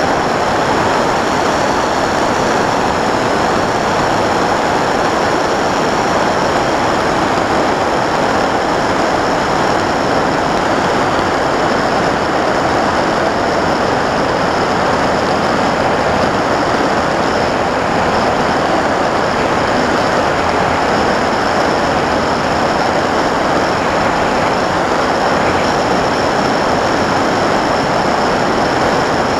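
Sky Cruiser 2400 RC model plane's electric motor and propeller running steadily in cruise, recorded by its onboard camera, with a thin high whine over a constant rush of air past the airframe.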